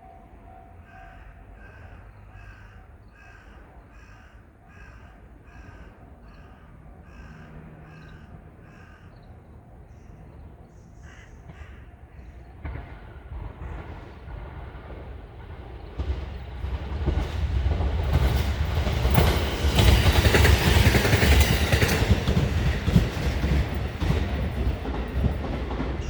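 A level-crossing warning bell ringing steadily, about two strokes a second. Then a Shinano Railway SR1-series electric train approaches and passes close by: its wheel and running noise builds from about halfway and becomes a loud rumble and rush in the last third.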